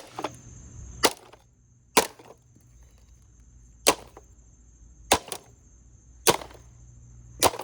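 A board smashing down on a Roomba robot vacuum: about eight hard, sharp strikes, roughly one a second.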